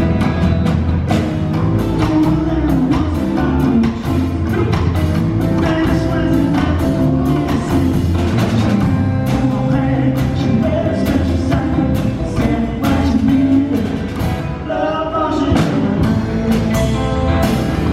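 Live rock band playing a cover song, with a steady drum-kit beat under the melody.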